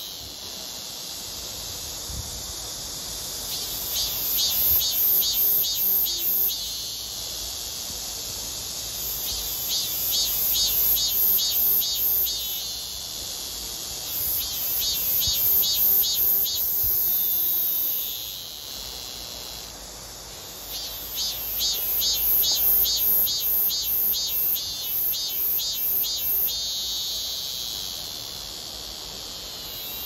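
A male Korean cicada (Hyalessa fuscata, chammaemi) singing its 'maem-maem-maem' song. Runs of rapidly repeated pulsed notes, about three a second, alternate with long drawn-out buzzing 'jjiiik' notes, four times over.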